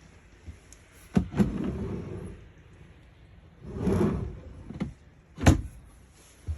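Doors or cupboards in a caravan being opened and shut. A knock and a short rough slide come about a second in, another slide comes near the middle, and a sharp bang near the end is the loudest.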